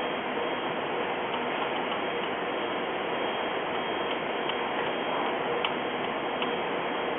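Steady background hiss with a few faint, irregular light ticks of small metal parts being handled, as the bracket's side screws are fitted with a hex driver.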